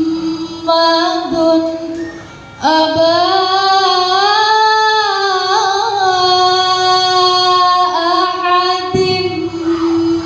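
A woman's voice reciting the Qur'an in melodic tilawah style into a microphone, drawing out long held, ornamented notes. There is a short pause for breath about two and a half seconds in, then a long unbroken phrase.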